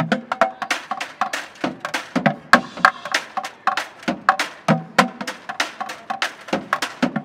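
Plastic buckets played as drums with drumsticks: a fast, unbroken run of sharp, clicky hits mixed with deeper thuds.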